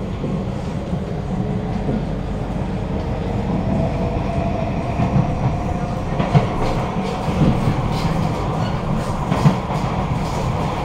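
Traction motor whine of a Kawasaki–CRRC Sifang C151A train, heard inside the carriage and described as echoey, rising slowly in pitch as the train gathers speed. It runs over a steady rumble of wheels on rail, with a few sharp knocks from the track in the second half.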